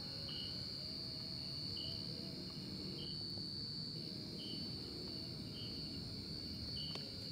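Crickets: a steady high-pitched trill, with a shorter chirp repeating about once a second.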